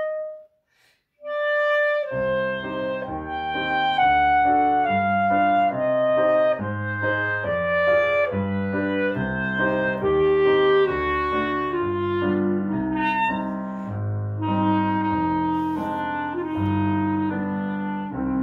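Clarinet and Roland digital piano playing a slow classical duet. The clarinet ends a phrase, a silence of about a second follows, then one short clarinet note, and about two seconds in the piano's low chords come in beneath a flowing clarinet melody.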